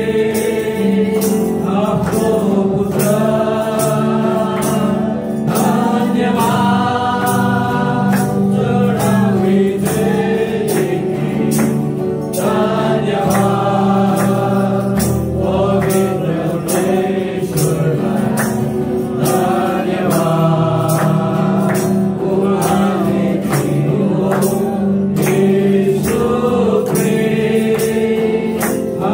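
Gospel praise-and-worship music: a choir of voices singing together over sustained instrumental accompaniment with a steady beat.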